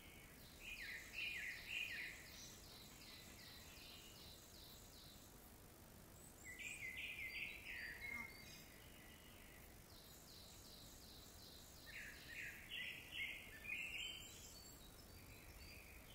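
Bird calls: three bouts of rapid, repeated high-pitched notes, a few seconds apart, over a faint steady background hiss.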